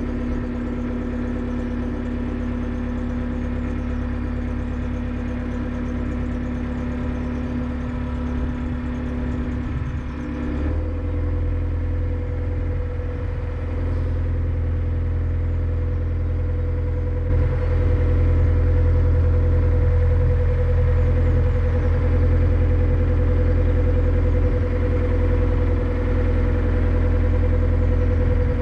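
Narrowboat's diesel engine running steadily at low revs, then opened up about eleven seconds in and again about six seconds later, its note changing and growing louder each time as the boat gets under way.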